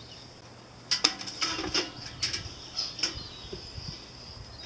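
Metal parts of a Barrel House 14-inch barrel cooker being handled: a quick series of clicks and clanks over about two seconds, some with a short metallic ring, then quieter.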